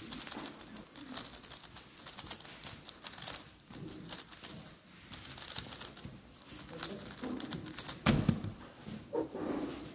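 Megaminx being turned fast in a speedsolve: a steady stream of quick plastic clicks and clacks. About eight seconds in, a heavy thump as the hands slap down on the stackmat timer to stop it.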